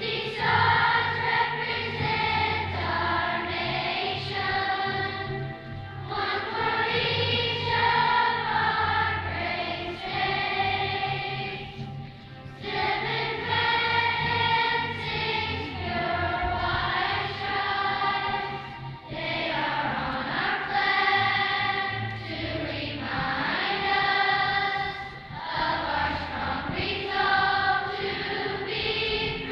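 Large children's choir singing a song with musical accompaniment, in phrases a few seconds long with short breaks between them.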